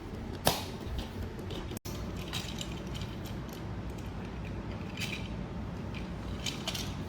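Scattered light clicks and taps of curtain track hardware being handled, with one sharper click about half a second in, over a steady low background hum.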